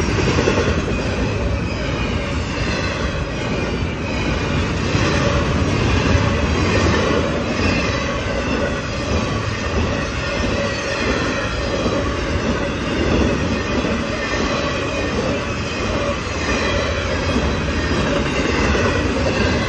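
Double-stack intermodal well cars of a freight train rolling past at a grade crossing: a steady rumble of steel wheels on rail, with faint wavering high-pitched wheel squeal over it.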